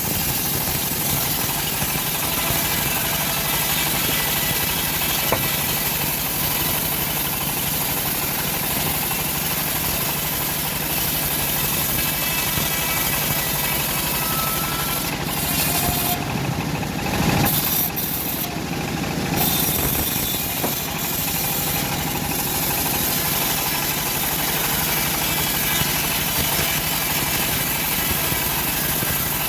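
Homemade bandsaw mill running steadily while sawing old teak wood. The sound changes briefly a little past halfway.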